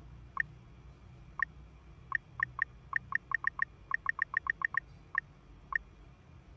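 Touchscreen keypad beeps from a kiosk app: about twenty short two-tone blips, one per key press, as a national ID card number is entered. They come unevenly, mostly in quick runs between about two and five seconds in.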